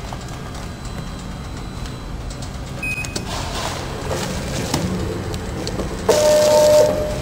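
Vertical form-fill-seal powder packing machine running: a steady low hum with a few scattered clicks and knocks, and a louder steady tone for about a second near the end as the machine cycles.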